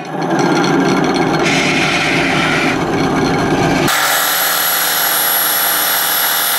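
A handheld power tool running steadily under load on a workpiece. About four seconds in, the low rumble drops away and a high whine comes forward.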